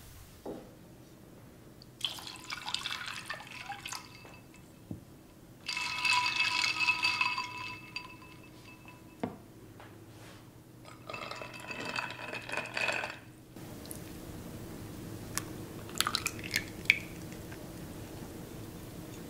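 Liquid poured into a glass bowl in three short goes, the middle one the loudest and ringing off the glass, with a few clinks. A low steady hum sets in about two-thirds of the way through, with a few light clicks after it.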